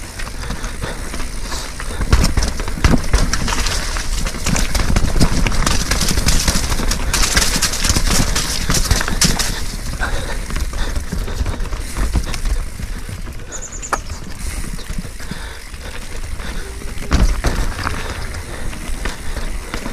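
Mountain bike descending a rough technical trail: tyres on dirt and rock, with the bike rattling and knocking over bumps and a heavy low rumble of wind on the microphone.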